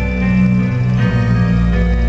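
Background music of held notes over a steady low bass, the notes changing every half second or so.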